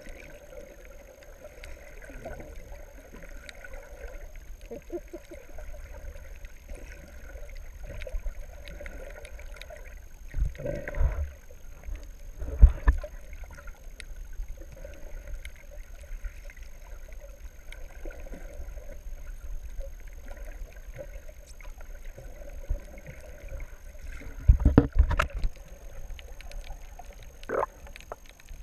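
Muffled water wash heard through an underwater camera housing just below the surface, with a low rumble and a faint high steady whine. A few louder sloshes and knocks come about a third of the way in and again near the end.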